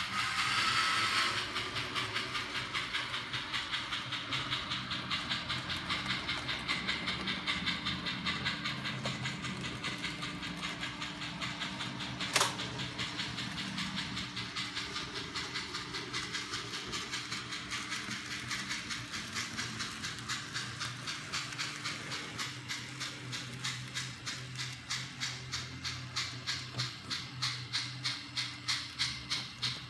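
N scale Kato GS-4 Daylight steam locomotive's DCC sound decoder playing steam exhaust chuffs with hiss through its small onboard speaker, in a steady, quick rhythm. Near the end the chuffs grow louder and further apart. A single sharp click comes about twelve seconds in.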